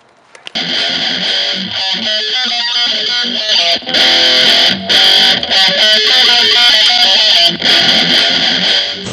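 Rock music led by electric guitar, with quick runs of notes. It drops out briefly at the very start and comes back in about half a second in.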